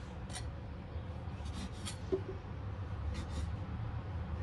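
A knife cutting through a stack of soft white bread slices on a wooden cutting board: a few short, faint scraping strokes and a light knock, over a steady low hum.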